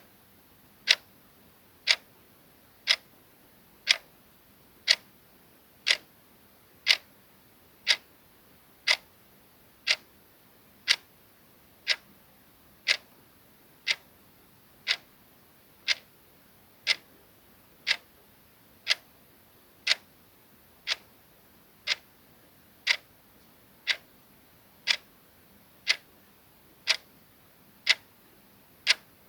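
Clock ticking sound effect: a soft, sharp tick once every second, evenly spaced.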